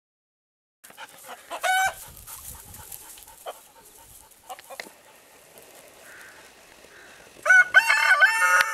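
Rooster crowing: a loud, drawn-out cock-a-doodle-doo that starts near the end. Earlier come a short high call about two seconds in and soft clucking.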